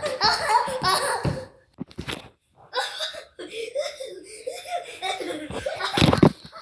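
A child laughing in two stretches, with a short pause about a second and a half in.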